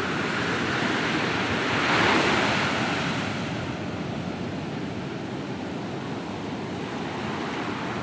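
Sea surf breaking and washing up a sandy beach. It swells to its loudest about two seconds in, then settles into a steady wash of foam.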